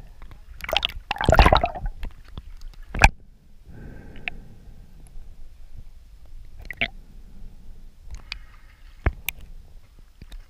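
Underwater water noise around a camera housing: a loud rush of water early on, then lower water noise broken by several sharp clicks. Near the end the camera breaks the surface.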